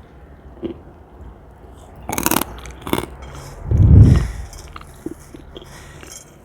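Close-miked bite into a piece of crispy dried cornstarch, crackling briefly about two seconds in, with a second short crack near three seconds. About a second later comes a deep, low thud that is the loudest sound, followed by faint chewing clicks.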